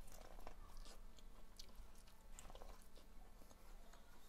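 A person chewing a mouthful of boiled corn on the cob coated in crushed chips, faint, with a few soft crunches.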